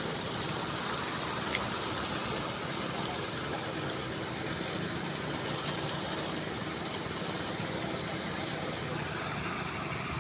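Small Robin petrol engine running steadily at an even speed, with a single sharp click about a second and a half in.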